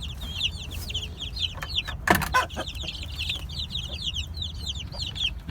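A group of two-week-old chicks peeping continuously: many short, high, downward-sliding peeps overlapping several times a second. A brief clatter about two seconds in is the loudest moment.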